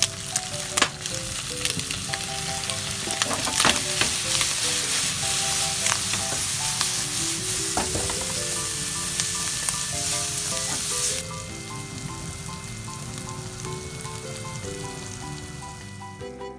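Bacon and vegetables sizzling as they stir-fry in a frying pan, stirred with chopsticks that click against the pan now and then. The sizzling cuts off suddenly about eleven seconds in, leaving light background music.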